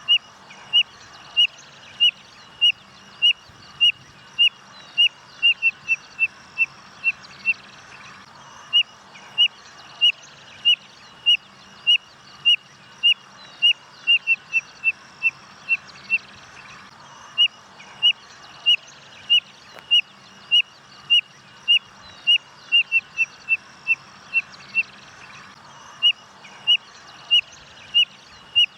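Spotted nothura (codorna-amarela) calling: a long series of short, high, whistled notes, about two a second. Now and then the notes come in quicker runs, and there are brief pauses between runs.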